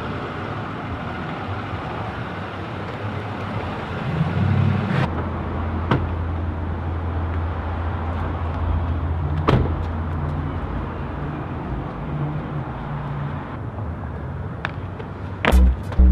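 Car running with a steady low engine hum, a few sharp knocks.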